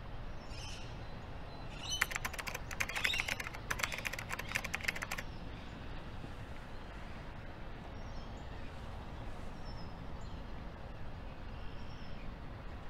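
Outdoor park ambience with a steady low rumble and faint, scattered bird chirps. About two seconds in, a rapid run of sharp clicks like keys being typed lasts about three seconds, as the 'field test' caption appears on screen.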